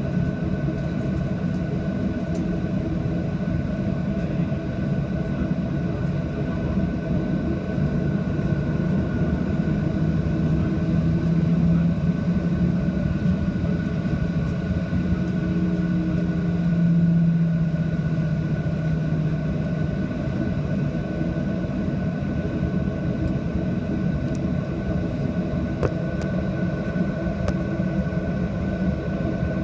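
A jet airliner's engines running steadily, heard from inside the cabin: a low rumble with a constant high whine. The low hum swells a little midway, with no big rise in power.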